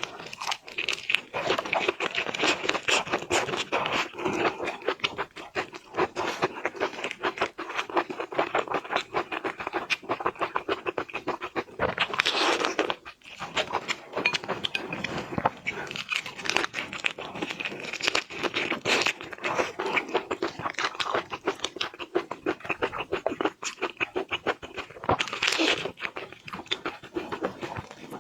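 Close-miked seafood eating sounds: a dense, continuous stream of small clicking chewing and mouth noises, with louder bursts about twelve and twenty-five seconds in.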